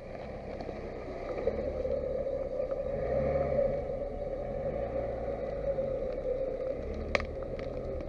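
Lada Niva 21214's 1.7-litre four-cylinder engine working under load as the SUV crawls through dense brush, revs rising and falling, growing louder as it comes close. A single sharp knock about seven seconds in.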